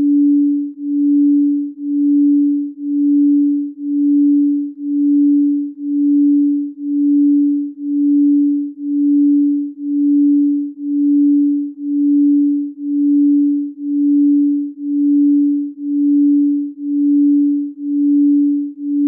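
Electronic pure sine tone for chakra balancing, held at one low-mid pitch and pulsing evenly in loudness about once a second.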